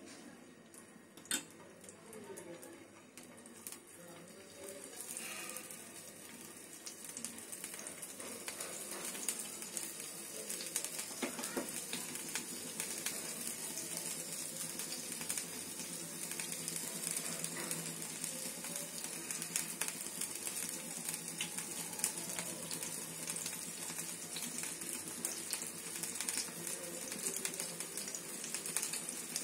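Marinated tilapia fish fingers sizzling in hot sesame oil in a flat pan. The crackle grows louder and denser from about five seconds in as more pieces are laid in. There is one sharp click about a second in.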